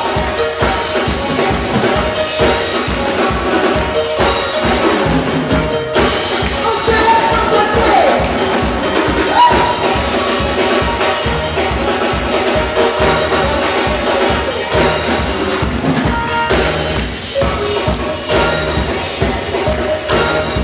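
Percussion ensemble playing a fast, dense drum rhythm, with pitched melodic parts over the drums.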